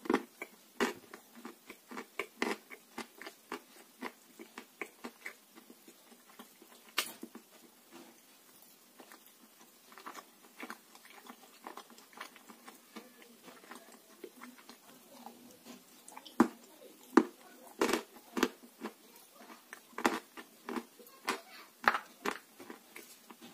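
Close-up crunching and chewing as a person bites into and eats lumps of grey clay: irregular sharp crunches, with a few louder bites about two-thirds of the way through.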